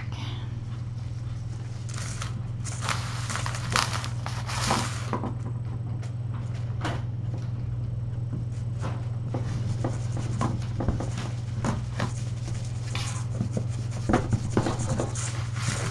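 Kittens scampering and pouncing on a mat, giving scattered light scrapes, rustles and taps, thickest about a quarter of the way in and again near the end, over a steady low hum.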